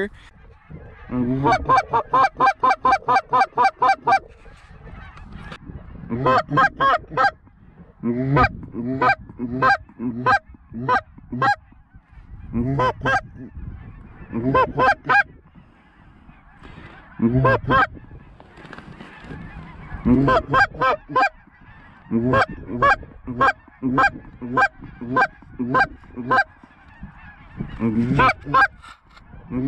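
Goose honks in quick runs, about five or six calls a second, stopping and starting again every few seconds.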